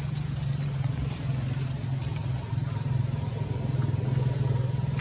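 An engine running steadily: a low drone with a fast, even pulse that holds without change.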